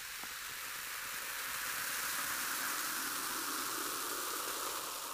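Steady hissing noise of an outro sound effect, swelling gently through the middle and easing off a little near the end.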